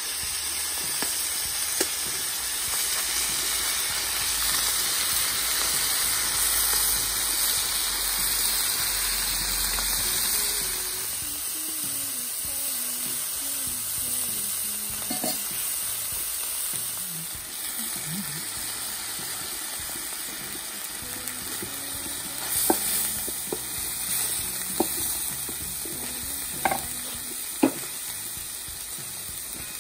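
Meat and onions sizzling in fat on a wide steel kotlovina pan over a fire, stirred and scraped with a wooden spoon. The sizzle is steady and a little louder in the first ten seconds or so, and a few sharp clacks of the spoon against the pan come near the end.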